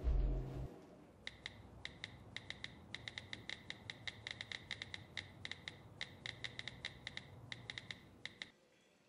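Smartphone keyboard clicks as a text message is typed: quick, uneven runs of small, crisp ticks that stop near the end. Muffled bass-heavy music cuts off within the first second.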